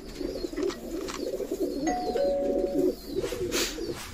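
Homing pigeons cooing in the loft: a low, warbling coo repeated over and over for the first three seconds or so. A short rustle comes about three and a half seconds in.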